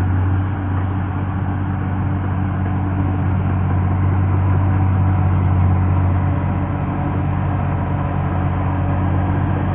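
Caterpillar bulldozer's diesel engine running at a steady speed, a deep, even drone.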